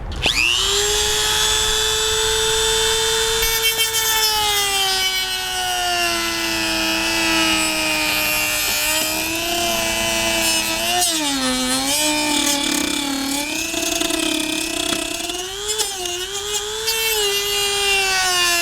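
Corded Dremel rotary tool with a reinforced cutoff wheel spinning up and running at high speed, cutting through a hard plastic car door pull. Its whine dips and wobbles in pitch as the wheel bears into the plastic, most clearly about eleven and fifteen seconds in.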